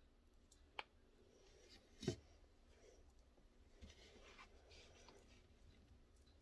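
Near silence with a few small sharp clicks, the loudest about two seconds in, and faint scratchy rubbing a little later.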